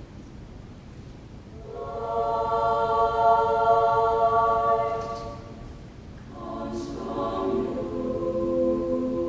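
Girls' choir singing sustained chords in slow phrases: softly at first, then a held chord enters and swells before fading, and a second phrase comes in with lower voices, held to the end.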